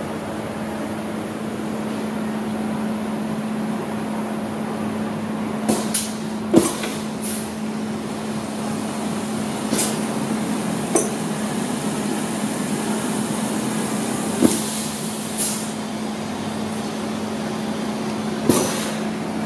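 Universal P5000 semi-automatic volumetric liquid filling machine cycling through its doses: a steady hum, broken every few seconds by a click and a short hiss of compressed air as its air-powered rotary valve and diving nozzle switch.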